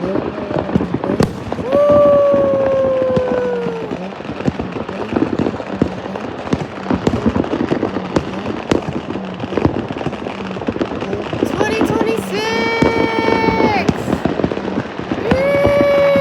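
Many fireworks and firecrackers popping and crackling without a break. Over them come long held pitched calls: one slowly falling about two seconds in, and two more near the end.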